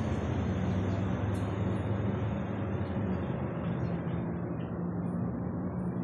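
Steady rumble of road traffic and vehicle engines, with a low hum under it.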